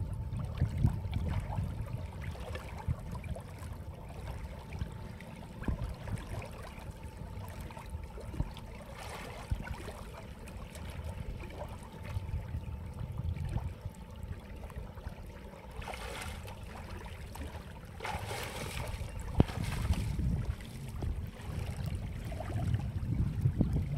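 Wind rumbling on the microphone over water lapping around a man wading waist-deep in a river, with a few brief splashes about two-thirds of the way in.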